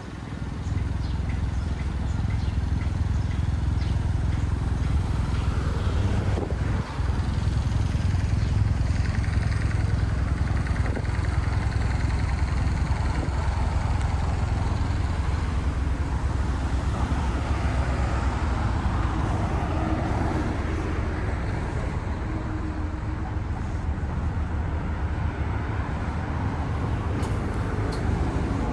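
Outdoor city ambience dominated by a steady low rumble, like road traffic, with a faint mix of background noise above it; a brief dip about seven seconds in.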